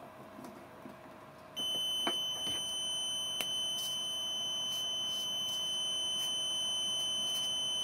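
Multimeter continuity tester beeping, a single steady high tone that starts about a second and a half in and holds without a break, with a couple of faint clicks from the probes. The beep shows that the probed connector pin is wired through to the fuse holder, marking it as the camera's 12-volt power input.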